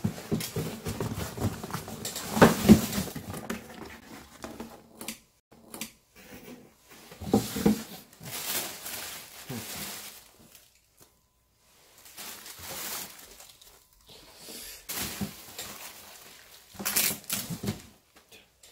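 Cardboard shipping box and paper wrapping being handled as sneakers are lifted out: bursts of rustling and scraping with a couple of dull knocks and short pauses.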